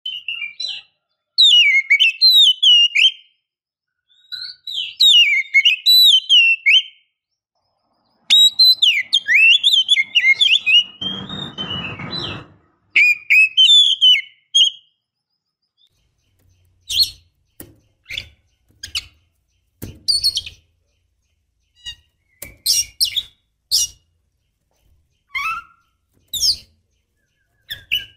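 Oriental magpie-robin singing: several bursts of fast, varied whistled and warbled phrases, followed in the second half by a string of short, sharp single calls. There is a brief rustle near the middle.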